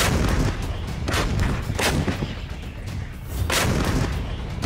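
Towed artillery guns firing: four heavy blasts in under four seconds, each with a rumbling tail, the third the loudest, over background music.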